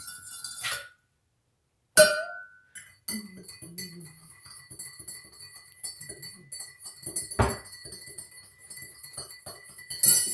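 A metal spoon clinking against a ceramic mug while stirring tea, in short runs of ringing clinks broken by gaps of silence. A louder knock comes about seven and a half seconds in.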